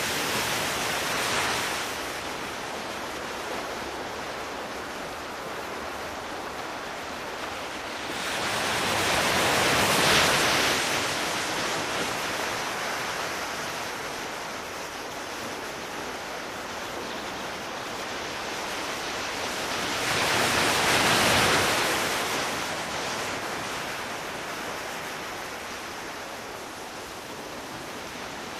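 Sea waves washing in and drawing back as a steady hiss, swelling to a louder surge about every ten seconds, three times.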